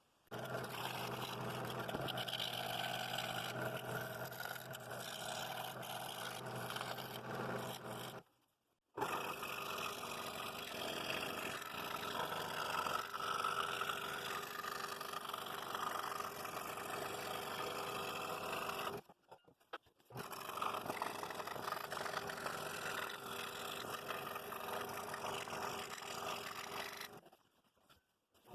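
Scroll saw running with a number 5 reverse-tooth blade, cutting a pattern out of a hardwood board: a steady machine hum with the rasp of the blade in the wood. It stops abruptly three times and starts again.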